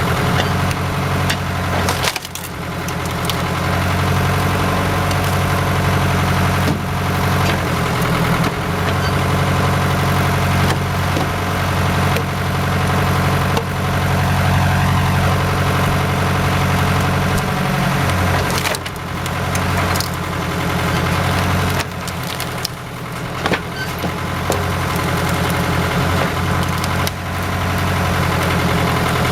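A machine's engine running steadily while wood is split or broken, with sharp cracks of splintering wood several times.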